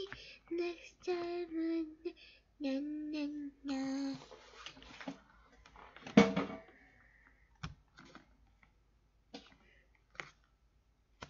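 A child's voice singing a few short notes without clear words for about four seconds, then one louder vocal burst about six seconds in. A few faint, sharp clicks and taps follow, from hands handling a picture book on a desk.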